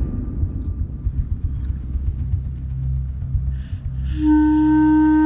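Background music: a low rumbling drone, joined about four seconds in by a loud long held note.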